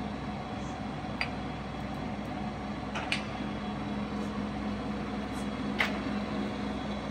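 Mecca Turn 460x1000 lathe running with a steady hum, with three sharp clicks as the feed-gearbox levers are shifted to set the maximum feed rate.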